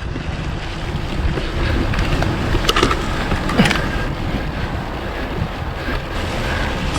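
Wind buffeting the microphone during a fast Scott Ransom 900 enduro mountain bike ride, a steady rumble with a few sharp knocks and rattles from the bike over rough ground about three to four seconds in.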